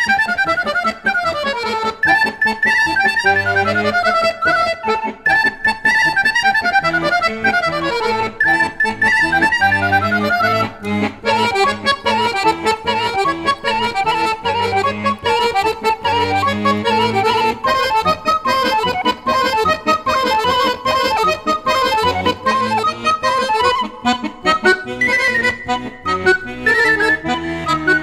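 Serbian kolo dance tune played on a piano accordion and an end-blown flute, melodic lines over a regular pulsing bass.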